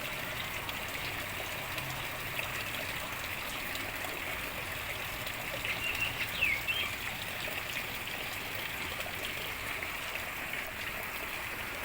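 Steady trickle of running water, with a few short high bird chirps about six seconds in.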